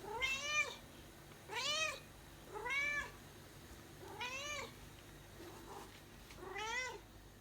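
Domestic cat yelling: five insistent meows, each rising then falling in pitch, about a second apart with a longer pause before the last.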